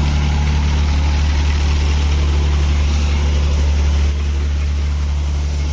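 Harvesting machine's diesel engine running steadily with a deep drone, easing slightly about four seconds in.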